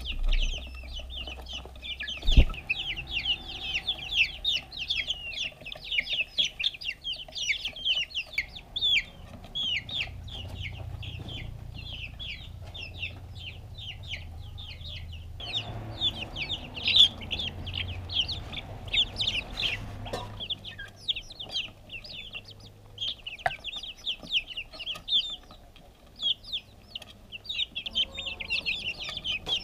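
A group of young chicks peeping almost without pause, many short, high cheeps that each drop in pitch and overlap, while they peck at feed. A few sharp knocks cut through, the loudest about two seconds in.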